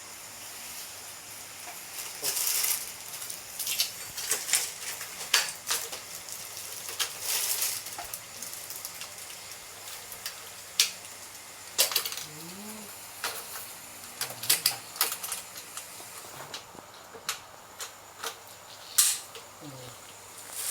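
Irregular clicks, clatter and short rustling bursts of packaging and bike parts being handled, with a few brief squeaks.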